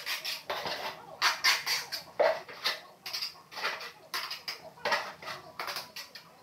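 Hard tile pieces being handled and set, a run of short, uneven scrapes and clicks a few times a second.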